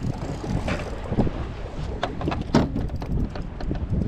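Wind buffeting the microphone on a fishing boat on open water, over a steady low rumble, with irregular knocks and crackles about two to three seconds in.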